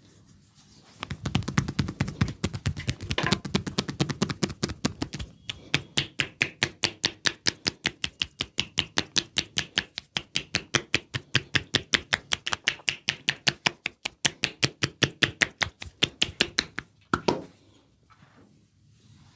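Percussive massage: hands striking the body in a fast, even run of about five or six strikes a second, with a short break about five seconds in and the strokes stopping near the end.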